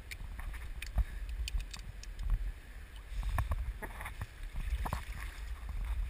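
River water sloshing and lapping close to the microphone, with a rumble of water and handling noise underneath. Scattered sharp knocks and clicks come from handling climbing hardware on a rope line.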